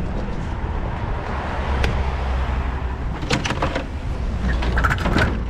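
Vehicle engine idling steadily, with a few short knocks and clatters.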